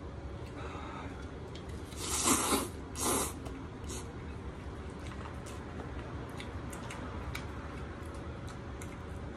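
Cold sesame noodles slurped from chopsticks: two loud, hissing slurps about two seconds in, then faint clicks of chewing and chopsticks.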